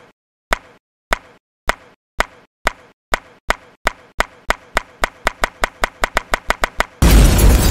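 A run of short, sharp pop sound effects, speeding up steadily from under two a second to about seven a second. About seven seconds in, a sudden loud rush of noise cuts in.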